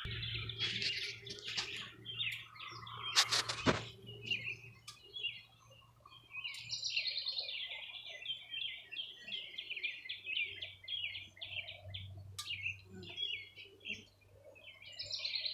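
Wild songbirds chirping and singing, with a quick run of rapidly repeated chirps in the middle. A couple of sharp knocks come about three and a half seconds in.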